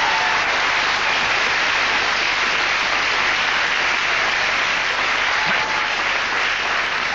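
Studio audience applauding, a steady dense clapping that eases slightly near the end.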